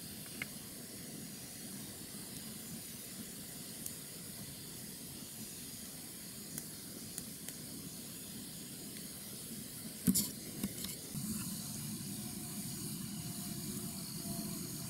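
Wood campfire burning: a low steady hiss with scattered faint crackles and one sharper pop about ten seconds in, followed by a couple of smaller ones.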